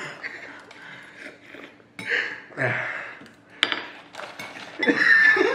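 A metal spoon clinking against a glass bowl a few times, with one sharp clink about three and a half seconds in. There is open-mouthed laughing and gasping through mouthpieces that hold the lips apart, loudest near the end.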